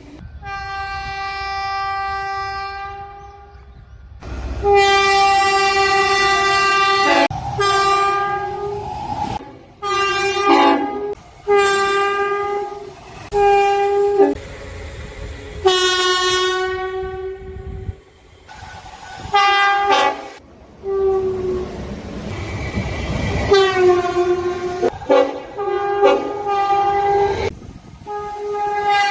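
A Tilt Train's air horn sounding a series of blasts, some held for a few seconds and some short, each a steady chord of several tones. A low rumble of the moving train runs under and between the blasts.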